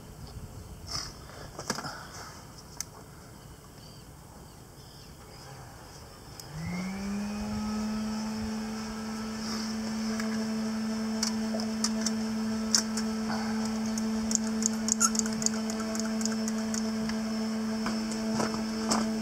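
A motor starts about six seconds in, quickly rising in pitch and settling into a steady hum that runs on. Scattered light clicks and taps of tools being handled sound throughout.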